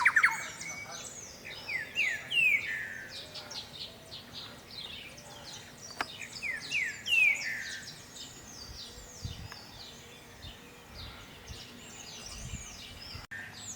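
Thrush-like wren singing: two bursts of rapid, falling whistled notes, the second about five seconds after the first, with lighter high chirps and calls in between.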